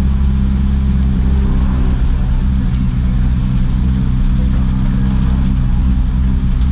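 JAC truck's diesel engine running at a steady cruise, a low even drone that holds its pitch without revving.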